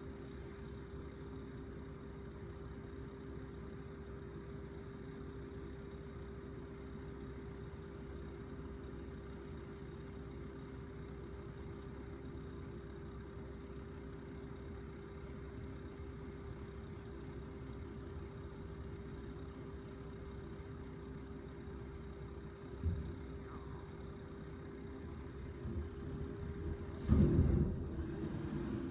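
Automated side-loader garbage truck running at a steady idle hum, muffled as if heard through a window. There is a short thump about 23 seconds in and a louder burst of noise near the end as the truck starts to move off.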